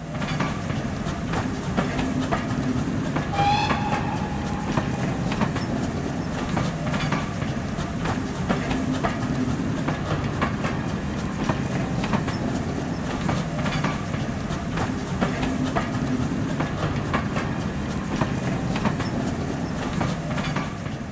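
Railway carriages passing at speed: steady rumble of the train with repeated clicks of the wheels over rail joints. A brief high-pitched tone sounds about three and a half seconds in.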